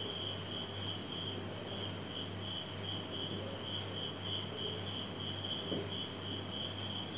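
A cricket chirping steadily in the background, a high pulsing tone, over a low steady hum.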